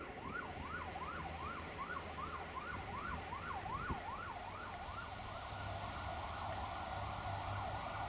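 Emergency-vehicle siren in fast yelp mode, its pitch sweeping up and down about three times a second. The sweeps blur and fade after about five seconds, over a low steady hum.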